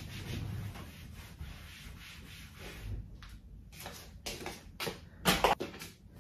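Soft rustling and handling noises, then a few clicks and a cluster of louder knocks about five seconds in as the phone camera is picked up and moved.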